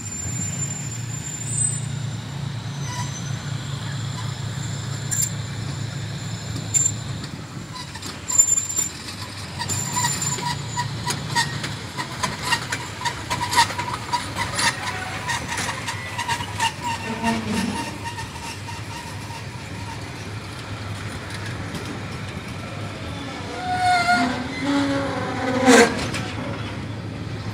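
Passenger coaches rolling past at low speed, their wheels clicking over rail joints, over the steady low drone of the diesel-electric locomotive hauling them. A louder clank comes near the end.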